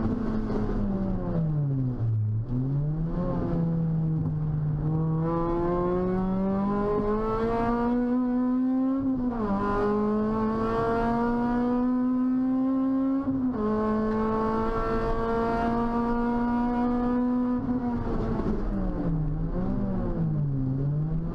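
Toyota Celica T-Sport's 1.8-litre 2ZZ-GE VVTL-i four-cylinder engine heard from inside the stripped cabin, driven hard on a race track. The revs climb steadily and dip sharply twice, about nine and thirteen seconds in, as gears change; near the start and again near the end the note falls away and swings up and down in short rises, as on lifting and downshifting.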